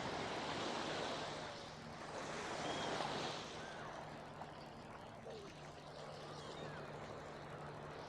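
Waves washing in on the beach, surging twice in the first few seconds, over a steady low engine hum, with faint distant voices.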